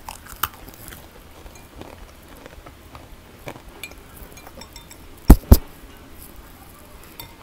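Light clicks and clinks of a metal spoon in a glass bowl of milk, with soft eating sounds, then two loud thumps a fraction of a second apart about five seconds in.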